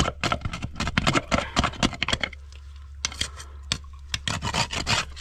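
Rapid, irregular clicking and scraping with a short lull about two seconds in, over a steady low hum.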